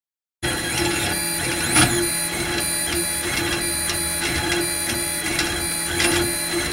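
Monoprice Select Mini 3D printer running mid-print: its stepper motors whine and chirp as the print head moves, the pitch shifting with each move and sweeping up and down about 2 seconds in. The sound starts about half a second in, after a brief silence.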